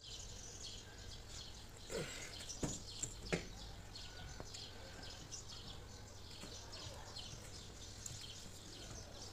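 A few light knocks and clunks, about two to three and a half seconds in, as a 7-speed DSG mechatronic unit is worked into place against the gearbox casing. Faint bird chirps are heard throughout.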